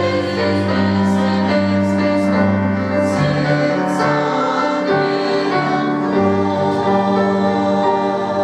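Church choir singing a hymn in long, held chords, the harmony changing every few seconds.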